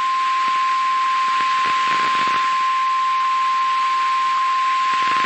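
NOAA Weather Radio 1050 Hz warning alarm tone: one steady high tone over the hiss of radio static, the attention signal that comes before a broadcast warning.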